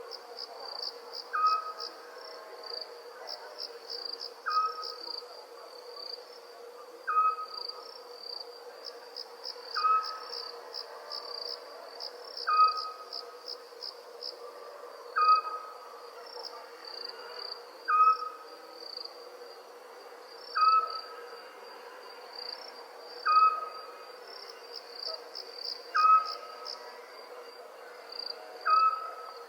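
Crickets chirping in a steady high-pitched pulsing chorus, with a steady low hum underneath. Over it an owl repeats a single short whistled hoot about every two and a half seconds, about eleven times.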